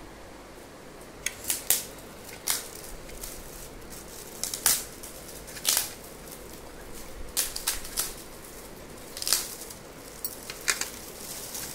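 Shiny red metallic gift wrap crinkling in short, sharp bursts as hands tear and pull it open to unwrap a present, starting about a second in.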